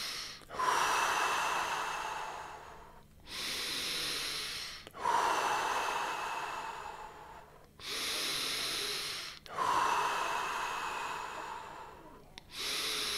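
A person taking deep, audible breaths in and out during a round of Tummo/TT5 breathing. There are about three full breath cycles, each a long airy inhale and exhale with a brief pause between.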